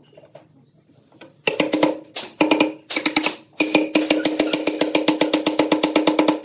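Wooden mallet rapidly striking a pine board to drive it down onto the glued tops of turned table legs. The knocks start about a second and a half in, in quick bursts at first and then an unbroken run of about seven a second, with a low ring under each blow.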